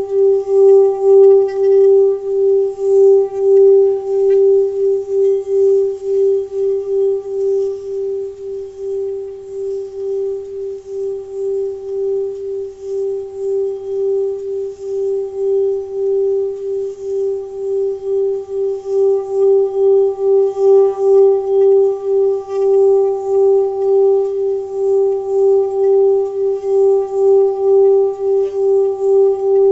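Tibetan singing bowl being rubbed around the rim, holding one steady ringing tone with a slow waver in loudness about once a second, with no fresh strikes and no fading.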